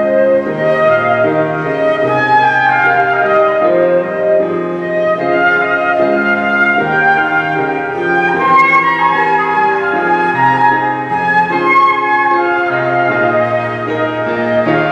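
Concert flute playing a slow melody of held notes over a lower accompaniment.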